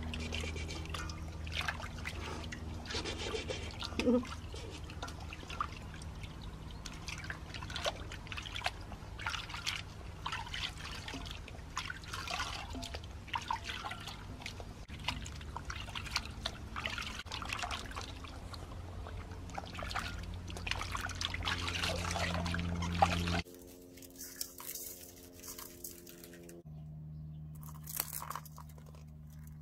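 Hands washing a whole fish in a stainless steel bowl of water: irregular splashing, sloshing and dripping over a steady low hum. Near the end the splashing stops suddenly and only a faint low hum is left.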